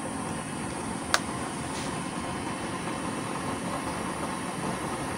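A small 12-volt blower fan running at higher speed, forcing air into a used-oil stove's burner while oil-soaked cardboard burns inside to preheat it. It makes a steady blowing noise, with one sharp click about a second in.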